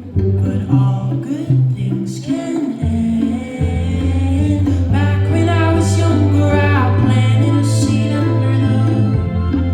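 Pop song playing: a lead vocal sung over sustained bass notes, with the singing growing fuller about two seconds in.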